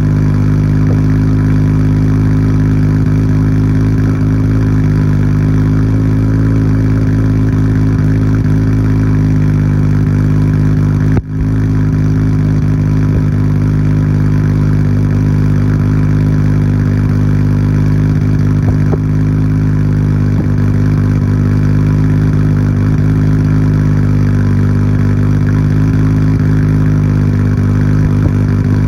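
Nissan Skyline GT-R R34's RB26DETT twin-turbo straight-six idling steadily after a cold start, heard through a Tomei Expreme Ti titanium exhaust with its silencer insert fitted. The sound drops out for a moment about eleven seconds in.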